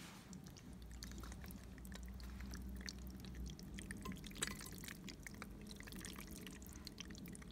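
Cheese-sauced penne being tipped from a bowl into a ceramic baking dish: faint, scattered wet plops and squelches as the saucy pasta slides in.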